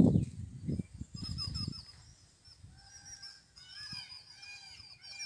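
Low wind rumble on the microphone for the first couple of seconds, then birds calling over and over in short, repeated chirping notes.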